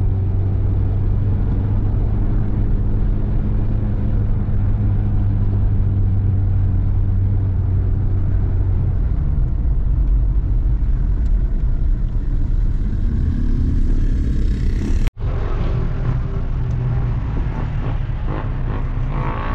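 Steady low rumble of a car, a constant hum whose pitch drops about nine seconds in. It breaks off abruptly about fifteen seconds in and a similar rumble carries on.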